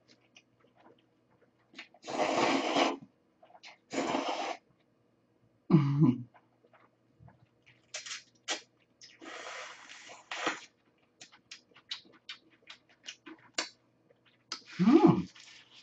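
A person slurping cold soy-milk noodles in several long, noisy slurps, with wet chewing and lip-smacking clicks between them. Two short throat sounds come about six seconds in and near the end.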